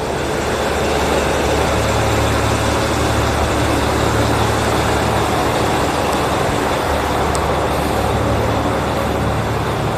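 JR Central KiHa 75 diesel railcar idling at the platform, a steady low engine hum.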